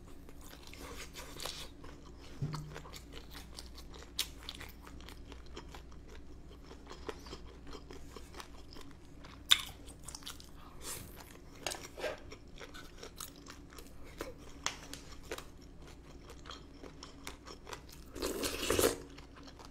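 Chewing of spicy boneless chicken feet, picked up close by the microphone: a run of small wet mouth clicks and smacks with scattered sharper crunches, one sharp click about halfway, and a louder stretch of chewing near the end.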